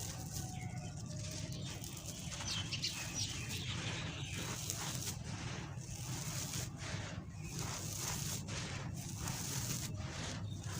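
Dry sand-cement shapes crumbling: a continuous gritty crunching and crackling made of many small breaks.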